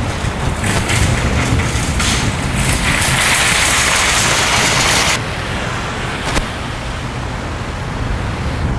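Parking-lot traffic noise: a steady low engine rumble, with a louder rushing hiss for about two seconds midway.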